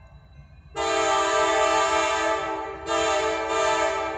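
A CSX diesel locomotive's multi-chime air horn blowing for a grade crossing. A long blast of about two seconds starts about a second in, then comes a short blast and another blast near the end, fitting the long-long-short-long crossing signal. A low rumble from the train runs underneath.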